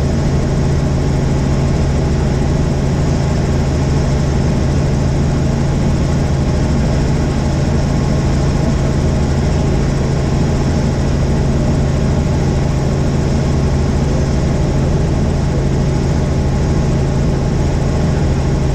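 Helicopter in flight: the steady drone of its engine and rotors, with a strong low hum, holding the same level throughout.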